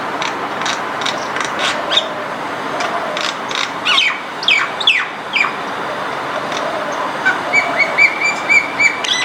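Common myna calling over steady background noise: a run of short clicks, then a few falling squawks about four to five seconds in, and near the end a quick series of about six short whistled notes.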